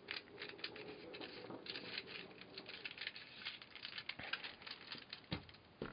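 Faint, irregular clicking and rattling of 3D-printed plastic puzzle pieces being handled and turned, with a firmer knock about five seconds in.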